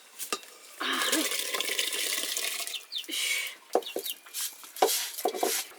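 Water pouring and splashing for about two seconds, then a shorter splash, followed by a few sharp knocks and clatters.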